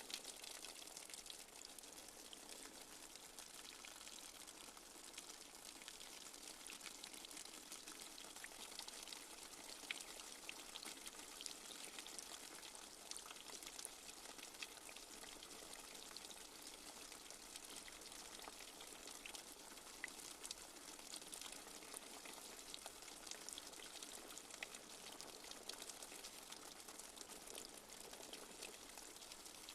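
Light rain falling steadily: a faint, even hiss speckled with many small drop ticks.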